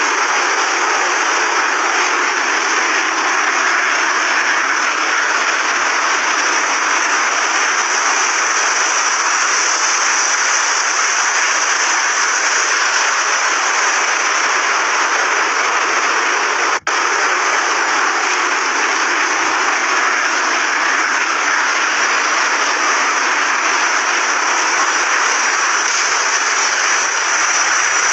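Fighter jet engine running steadily: an unbroken hiss with a high whine over it, cut by a brief dropout about seventeen seconds in.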